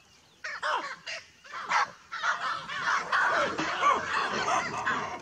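A troop of baboons calling, with many short, arching barks overlapping. A few calls come in the first two seconds, then they thicken into a dense, continuous chorus.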